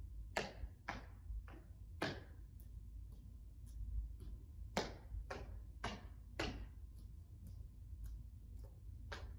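Faint, irregular taps and scuffs of hands and sneakers on a wooden gym floor during inchworm walks, about one or two a second, over a low steady room hum.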